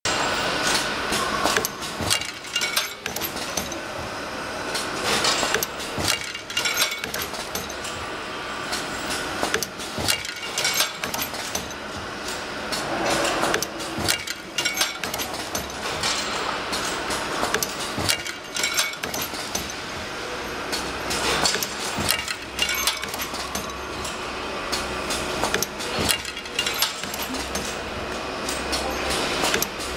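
Automatic induction quenching machine for engine valve tips cycling: repeated sharp metallic clacks and clinks as its pneumatic gripper arms move and steel valves are set down, over a faint low hum, with a brief hiss about 13 seconds in.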